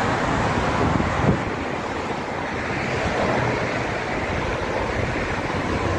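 Steady roar of road traffic with wind rushing over the microphone, and one brief knock a little over a second in.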